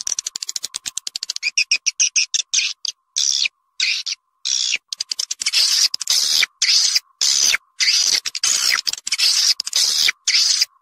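Recorded swiftlet calls: a fast run of dry clicks in the first couple of seconds, then bursts of high twittering chirps that start and stop abruptly. This is a swiftlet lure call, the kind played to draw swiftlets into nesting houses.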